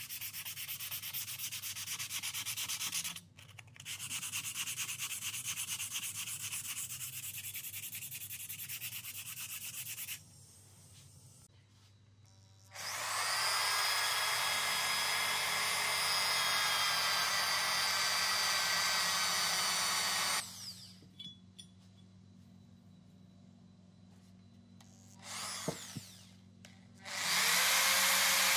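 A sanding disc rubbed by hand back and forth along the metal side of a hand plane body, in fast scraping strokes with a short break about three seconds in. About halfway through, an electric drill fitted with a deburring wheel spins up and grinds steadily against the plane's side for several seconds, then starts again near the end, louder than the hand sanding.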